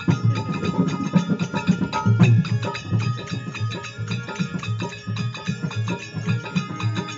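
Instrumental interlude of a desi devotional bhajan: drums beating a fast, even rhythm under a held melody.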